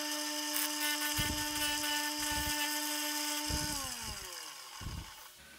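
INGCO water-pump electric motor driving a sanding disc, running with a steady hum while a wood block is pressed against the abrasive and sanded with a gritty hiss. About three and a half seconds in, the motor's hum falls in pitch as it winds down.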